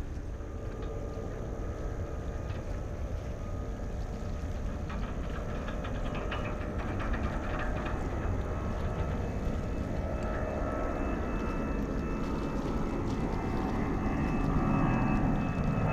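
Boeing 767-300ER's twin jet engines at takeoff thrust: a steady low rumble with a thin whine, growing louder near the end as the airliner climbs out.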